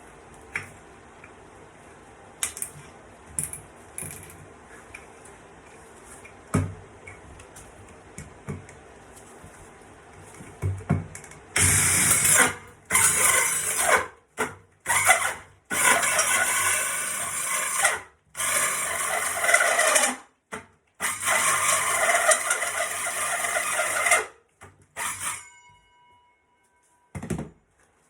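A power drill spinning a carbon steel hole saw into wood, run in about half a dozen loud bursts as the trigger is pulled and released, starting about a third of the way in. Before that only a few faint clicks and knocks of handling; near the end the motor gives a brief steady whine.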